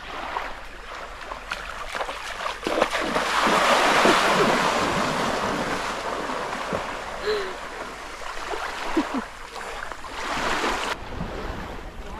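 Water splashing and washing around a boat in open sea, with wind on the microphone. It is a steady hiss that swells a few seconds in and then eases.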